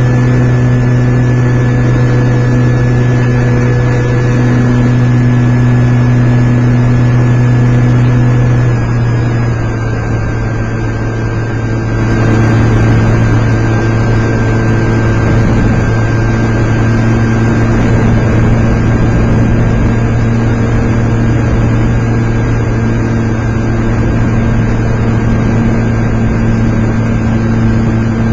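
Model airplane's motor running steadily, heard close up from a camera strapped to the plane. It eases off about nine seconds in and picks up again about three seconds later.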